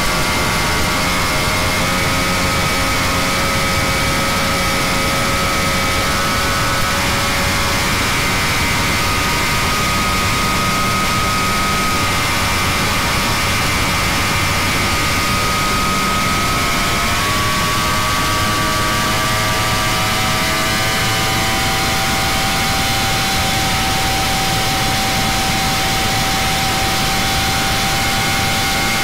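Catamaran powerboat's engines running hard at speed over a steady rush of wind and water, while the boat accelerates past 100 mph. The engine tones shift in pitch about halfway through, then climb slowly.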